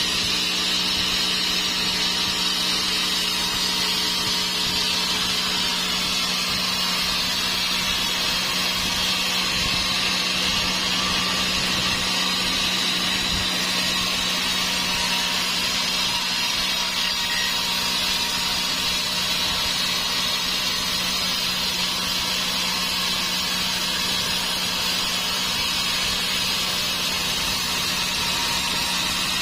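Sawmill saw cutting through a large dry teak log: a steady machine hum under a high, noisy cutting whine that slowly wavers in pitch.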